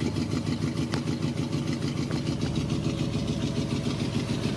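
1970 Ford Galaxie 500's 351 Windsor V8 with a four-barrel carburettor idling steadily through dual glasspack exhausts, with an even, rapid low pulse.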